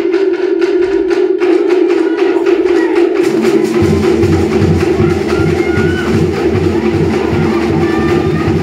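Cook Islands dance music with fast, rhythmic percussion; a deeper drum beat joins about three seconds in.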